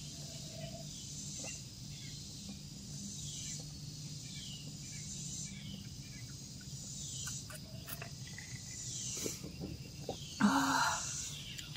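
Insects chirping in a steady high chorus, with a short call repeating about every two seconds. A low steady hum lies beneath, and a brief soft noise comes a little after ten seconds in.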